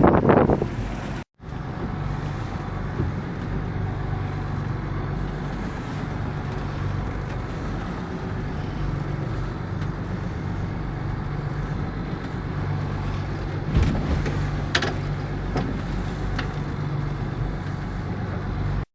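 Fishing boat's inboard engine running steadily under way, a low even drone with wind and water noise over it. The sound drops out for a moment about a second in.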